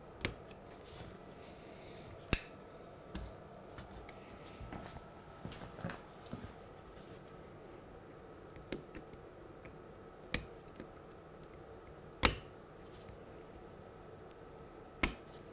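Small long-nosed pliers clicking against the metal tabs and plastic of a model railway point as the tabs are prised up to free the centre section. The sharp clicks come a few seconds apart, the loudest about 2, 10, 12 and 15 seconds in.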